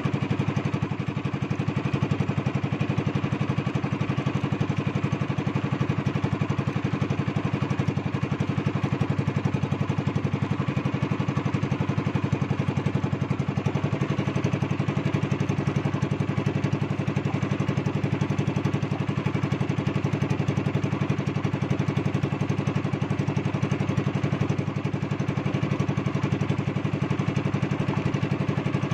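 Engine of a small outrigger fishing boat running steadily under way, its tone changing slightly about halfway through.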